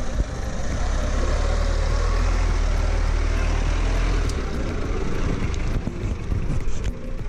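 Lada Niva's Peugeot 1.9-litre diesel engine running at low revs as the 4x4 crawls through deep mud and passes close by. The deep, steady rumble is loudest from about two to four seconds in.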